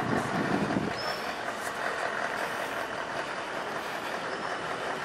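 Steady hum of vehicle engines and traffic, with a heavier low rumble in the first second.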